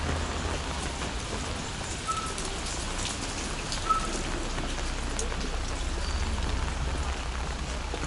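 Rain falling on an open umbrella held overhead and on wet pavement: a steady hiss with scattered sharp drop ticks.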